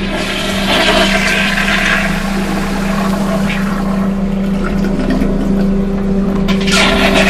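Tankless toilet plumbed straight to the water supply flushing: rushing water starts about a second in and surges again near the end. A lawn mower engine drones steadily underneath.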